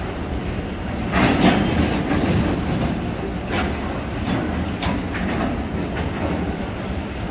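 Freight wagons loaded with steel coils rolling past, a steady low rumble with wheels clacking over rail joints, a cluster of clanks about a second in and a few more later.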